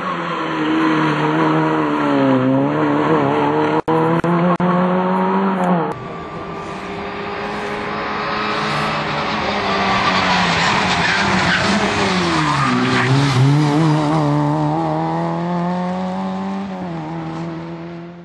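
Rally car engine driven hard at high revs, the pitch dropping and climbing again twice as the driver lifts off and changes gear. The sound cuts sharply to a second run about six seconds in, where a rising hiss of tyre noise joins the engine.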